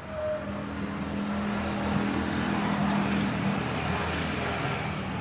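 Salvaged Polytron compo amplifier board playing music from a phone through two small speakers: a hissy swell that builds over the first couple of seconds with a steady low note under it, then eases a little.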